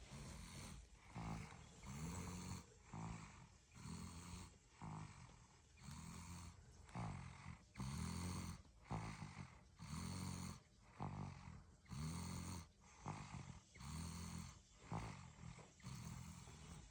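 A 14-month-old toddler snoring in sleep: a low snore on each breath, repeating evenly about once a second.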